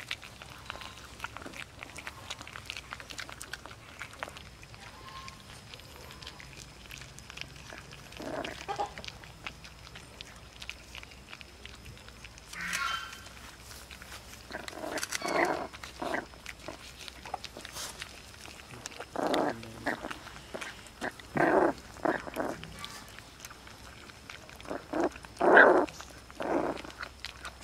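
Puppies eating rice off a plate: a steady run of small wet chewing and smacking clicks, broken by several short vocal noises from the puppies, the loudest near the end.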